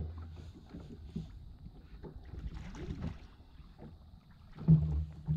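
Spinning reel being wound in, its handle ticking, as a hooked snapper is brought up to the surface, with water sloshing against the jet ski's hull. A louder low hum comes in near the end.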